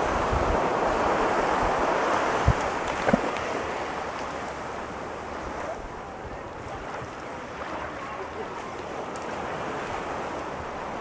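Ocean surf breaking and washing up the beach, a steady rush that is loudest in the first few seconds and eases off about halfway through. A couple of brief wind buffets hit the microphone a few seconds in.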